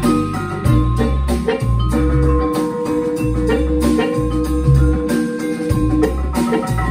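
Live blues band jamming: vibraphone, harmonica, electric guitar, upright bass, drums and hand percussion playing together over a steady beat, with the mallet notes of the vibraphone standing out.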